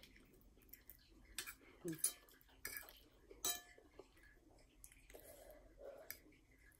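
A metal fork clinks and scrapes against a ceramic plate as spicy noodles are twirled, with a few sharp clinks in the first half. Near the end come a couple of soft puffs of breath.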